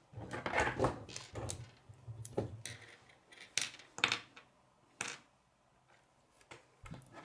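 Plastic K'nex rods and connectors clicking and clattering as they are snapped together and picked up off a wooden tabletop. The sharp clicks and knocks are spread over the first five seconds, with a low handling rumble under the first couple of seconds.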